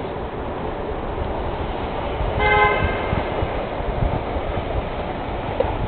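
Steady street traffic noise, with a vehicle horn giving one short toot about two and a half seconds in.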